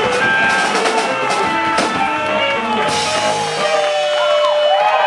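Rock band playing, with drum kit and guitar under held melody notes.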